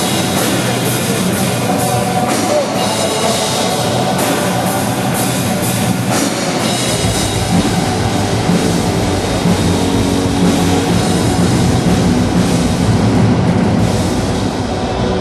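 Symphonic metal band playing loud at a soundcheck: drum kit with cymbal hits and distorted guitars, the low end growing heavier about halfway through.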